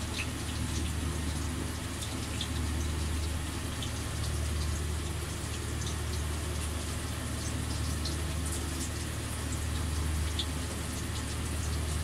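Breaded chicken schnitzels frying in a pan of oil: a steady hiss with scattered small crackles, over a low steady hum.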